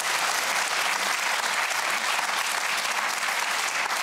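Studio audience applauding, a dense, steady clapping that goes on without a break.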